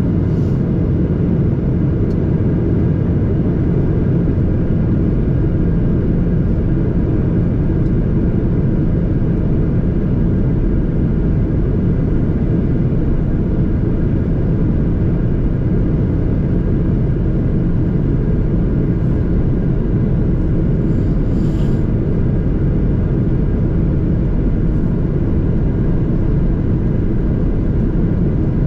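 Steady cabin noise of a Boeing 737-800 in flight, heard from a window seat beside the wing: a dense, even rumble of airflow and its CFM56 engines, with a faint steady hum above it.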